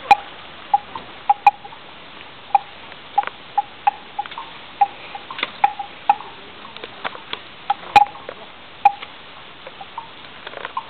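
Water dripping: irregular sharp plinks of single drops, a few a second, over a steady low hiss.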